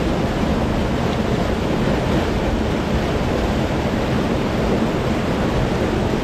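Mountain creek cascading over boulders just below the microphone: a steady, loud rush of whitewater.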